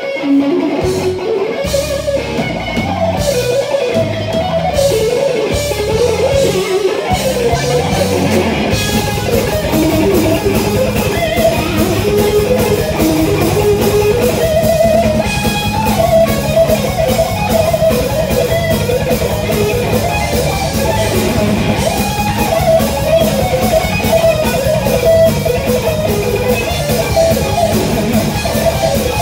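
Live heavy metal: a distorted electric guitar through Marshall stacks plays a fast lead melody over drums and bass. About eight seconds in, the band kicks into a dense, rapid driving rhythm under the guitar.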